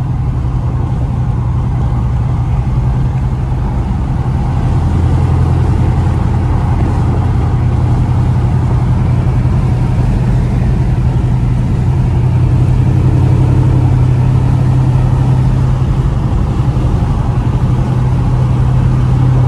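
Chevrolet Camaro SS's 6.2-litre LT1 V8 and loud exhaust running steadily inside the cabin while cruising at about 60 mph, a low, even drone that swells slightly a few seconds in.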